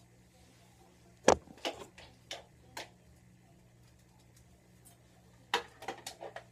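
A few sharp clicks and knocks in two clusters: one about a second in, led by the loudest knock, and another near the end.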